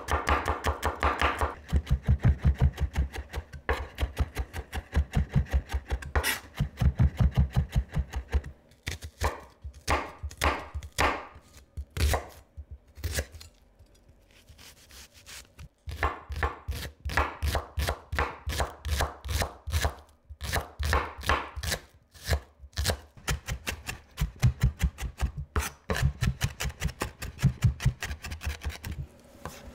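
Chef's knife chopping on a wooden cutting board: quick runs of sharp knocks as garlic is minced, a sparser stretch of single cuts into a shallot in the middle, then fast chopping again as the shallot is finely diced.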